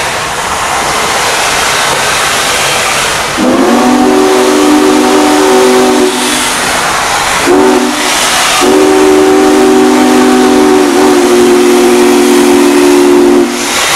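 Union Pacific Big Boy 4014's chime steam whistle sounding three times: a long blast, a short one, then a longer one that dips slightly in pitch partway through. All of it sits over a steady hiss of steam.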